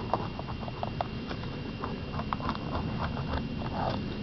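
Spline rolling tool's metal wheel pressing spline into a screen frame's channel over clear plastic film, making irregular small clicks and ticks as it is worked along in short strokes.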